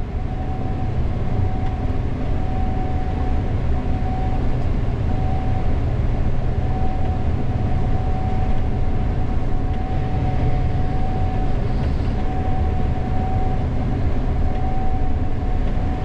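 Gleaner S98 combine running steadily while harvesting corn, heard from the operator's cab: a dense low rumble with a steady high whine over it.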